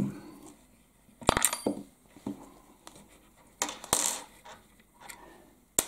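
Small metal clinks and clicks from handling the screws that hold the speaker's bass mid-range driver in place. The first, about a second in, rings briefly and high, with a few lighter taps and a short scrape after it and a click near the end.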